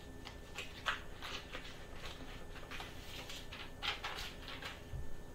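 Sheet of paper being handled, a few short crinkling rustles, over a faint steady room hum.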